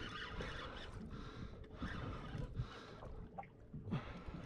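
Spinning reel being cranked to bring up a hooked fish: a whirring hiss that swells with each turn of the handle, a little more than one turn a second, with a short pause about three seconds in. Wind and water noise rumble underneath.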